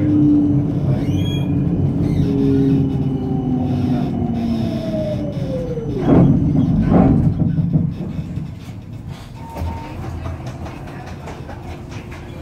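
Electric tram running on its rails, its motor whine falling in pitch over the first six seconds as it slows. Two loud clunks come about six and seven seconds in, then the running noise settles lower.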